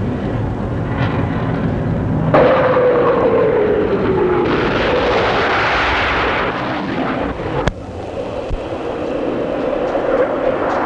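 Military jet aircraft engines: a jet passes with its whine falling in pitch, then a few seconds of loud rumbling noise from explosions. After a sudden cut, a jet's engines run steadily as it rolls along a runway.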